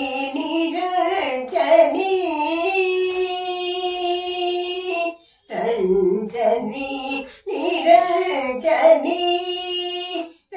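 An elderly woman singing unaccompanied in Indian classical style, holding long notes with gliding, ornamented turns of pitch. The singing stops briefly about five and seven seconds in.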